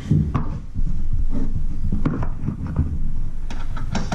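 Clicks and scrapes of a small Allen key working a bolt on a steel roof-rack bracket, over low knocking and rubbing from hands handling the bracket on the car's roof panel. There are several sharp clicks, one a little after the start and the rest in the second half.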